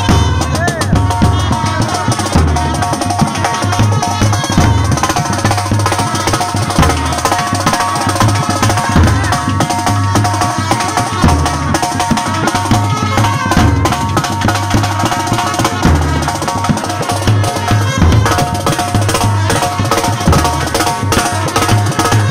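Indian brass band playing live: trumpets carry a melody over a snare drum and a bass drum.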